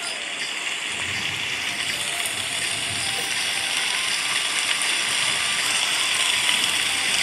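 Heavy rain falling steadily, a dense, even hiss that grows a little louder.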